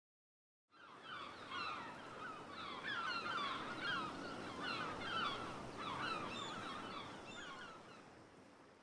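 Waves washing onto a sandy beach, with a flock of water birds giving many short, overlapping calls over them. The sound fades in about a second in and fades away near the end.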